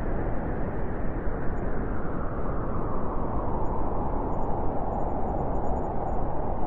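Blizzard wind blowing steadily, a dense low rushing with gentle swells in strength.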